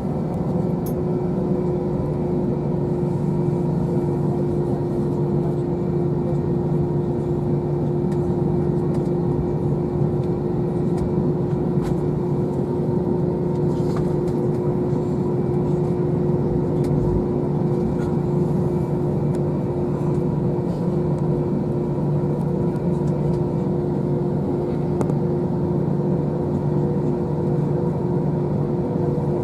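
Steady cabin drone inside an Airbus A321 on the ground with its engines running at low power: an even rumble with a steady hum over it, holding the same pitch and level throughout.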